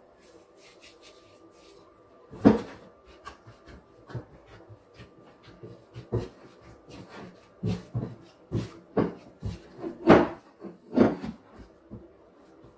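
Hands kneading sticky chapati dough in a glass bowl: soft squelching and a run of short thumps about twice a second as the dough is pressed and turned, with one sharp knock about two and a half seconds in.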